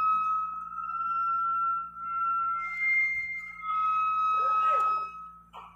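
High, steady metal squeal from the steel sections of a telescoping telecom mast sliding as the tower is extended. It breaks off briefly, jumps higher for about a second, drops back to the first pitch, and then stops suddenly just before the end as the tower reaches full height.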